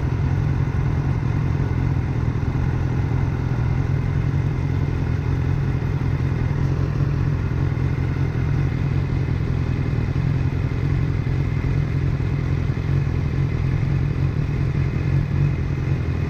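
BMW S1000R's inline-four engine idling steadily while the bike stands still.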